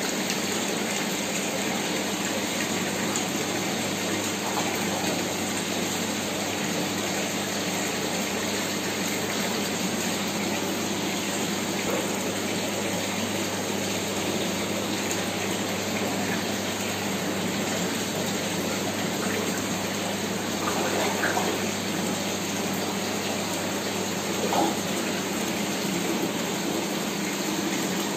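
Steady rush of fish-tank aeration: air stones bubbling in the water, with a low steady hum underneath.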